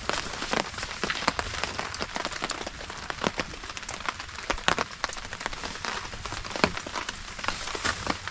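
Steady rain, with frequent sharp drops landing close by at an irregular pace.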